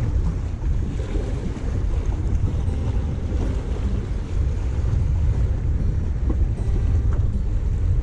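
Wind buffeting the microphone in a steady low rumble, over the wash of choppy sea waves against the breakwater's tetrapods.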